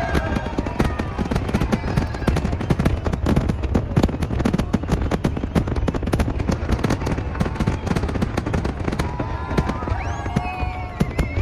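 Fireworks display: a dense, continuous barrage of firework bursts and crackles, many reports a second, with spectators' voices rising about nine seconds in.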